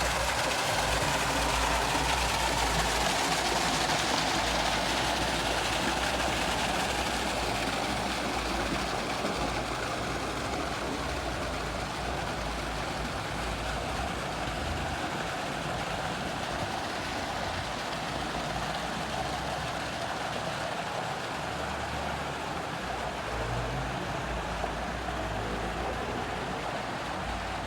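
Pool waterfall: water pouring steadily and splashing into the pool, a little louder for the first several seconds.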